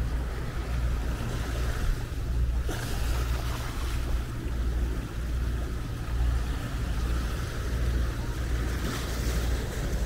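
Wind buffeting the microphone with an uneven low rumble, over the hiss of sea surf that swells twice, about three seconds in and near the end.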